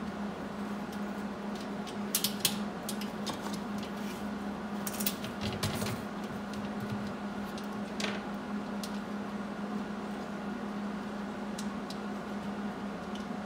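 Steady low hum, with scattered light clicks and taps of a steel angle-iron bracket being handled against a solar panel's aluminium frame, in small clusters about two seconds and five seconds in and once near eight seconds.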